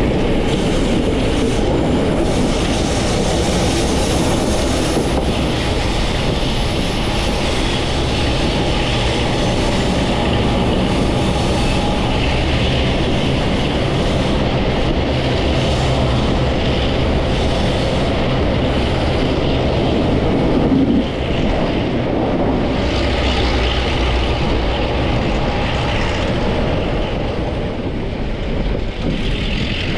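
Heritage BCE train carriage rolling along the track at speed, a steady rushing and rumbling noise heard from its open upper guard's window, with a brief louder surge about two-thirds of the way through.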